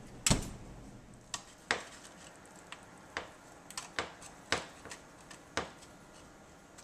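A heavy knock about a quarter second in, then a metal slotted serving spoon clicking and scraping against an aluminium foil pan several times as it cuts and lifts a portion of casserole.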